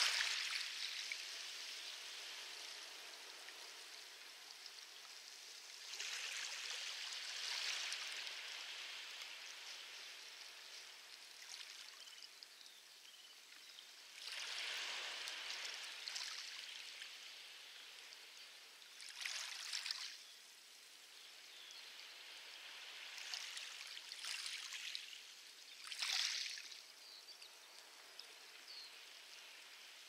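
Light waves washing onto a pebble beach: a soft hiss that swells and drains back about six times, every few seconds.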